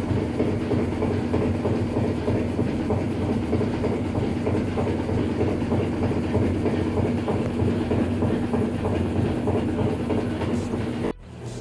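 Washing machine spinning with a steady, loud rattling noise from its loose, worn suspension rods and their rubber bushings, which need replacing. The noise drops off abruptly near the end.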